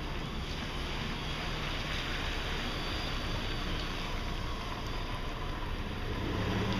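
Steady rushing noise of wind on the microphone and light rain, with a low hum underneath that swells near the end.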